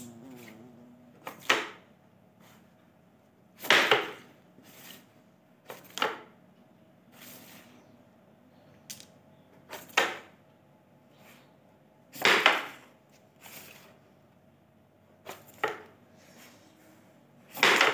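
Carrom striker flicked across a wooden carrom board, clacking against the carrom men and the wooden frame: about a dozen sharp knocks at irregular intervals, the loudest and longest about 4 and 12 seconds in and again at the very end.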